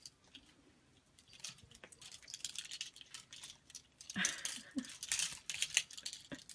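Plastic clothes hangers clattering and clacking against each other and the closet rail as a cat climbs among them. The clacks are sparse at first and grow denser and louder about four seconds in.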